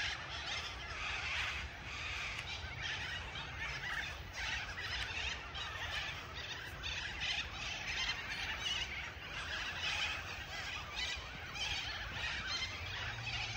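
Many birds chirping and calling at once, a dense chorus of short calls over a steady low rumble.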